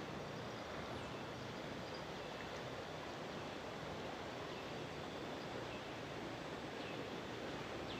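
Steady rushing of a flooded, fast-flowing river, even and unbroken.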